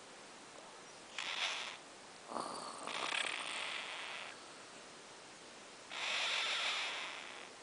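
Cockatiel making its breathy 'snoring' sound: three raspy hisses, a short one about a second in, a longer one a little after two seconds, and another near the end.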